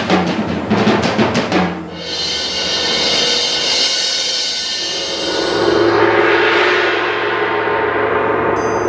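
Percussion passage in a marimba concerto: a fast run of drum strokes for about two seconds, then a long ringing of metal percussion that thins out and swells again later.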